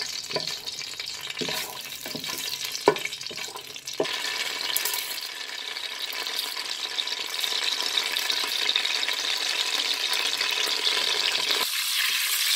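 Whole cardamom and fennel seeds frying in hot desi ghee. A wooden spatula knocks and scrapes against the pot in the first few seconds. From about four seconds in, the sizzle grows steadily louder as the ghee heats: the tadka, or tempering, is taking.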